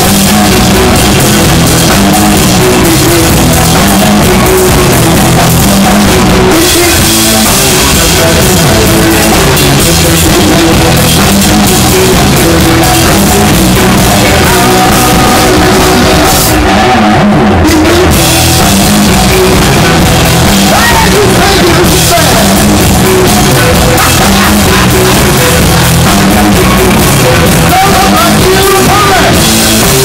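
Live bluesy rock band playing loud: hollow-body electric guitar, drum kit with cymbals and a man singing, recorded on a cell phone close to the stage. The cymbals drop out for about a second just past the middle.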